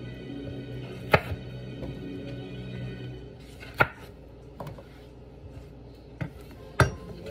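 Kitchen knife cutting bell pepper on a cutting board: a handful of sharp, separate knocks a second or more apart, with background music in the first half.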